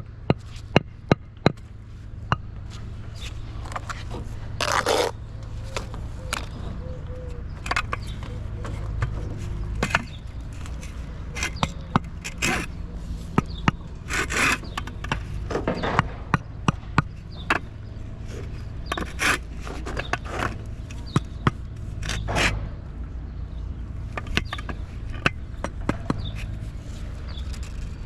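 Hand work on a construction site: irregular sharp knocks and several longer scrapes, over a steady low hum.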